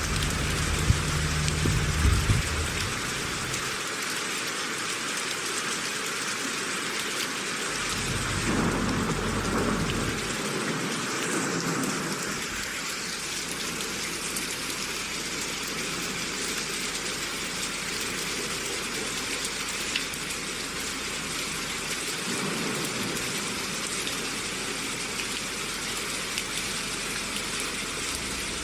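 Steady rain falling, an even hiss of rain on surfaces, with low rumbles swelling and fading a few times: in the first couple of seconds, around eight to ten seconds in, and again near twenty-two seconds.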